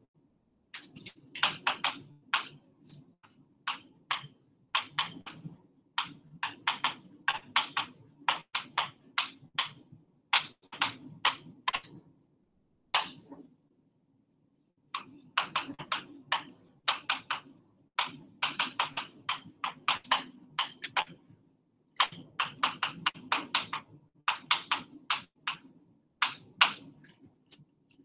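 Writing on a board by hand: quick taps and scratches of each letter stroke in bursts of a second or two, with a pause about halfway through.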